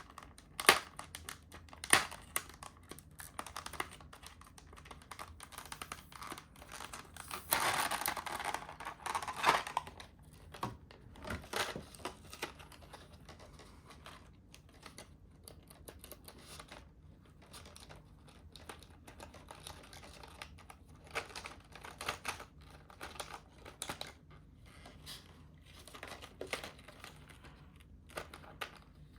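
Plastic packaging crinkling and small hard accessories clicking as a mechanical keyboard's accessory kit is unpacked by hand, with a longer stretch of crinkling about eight seconds in.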